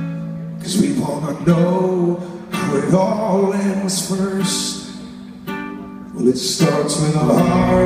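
Live rock band playing an instrumental passage: strummed guitar chords over bass and drum, with accented hits about every second and a brief dip in level about five seconds in.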